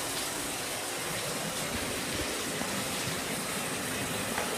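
Bathtub faucet running steadily, water pouring from the spout into the tub.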